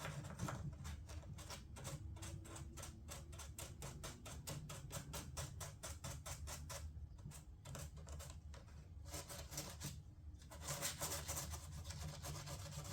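Rapid hand strokes abrading partly cured body filler on a fiberglass door panel, several strokes a second, knocking down the high spots. The strokes stop briefly about seven and ten seconds in, then go on as a denser rubbing near the end.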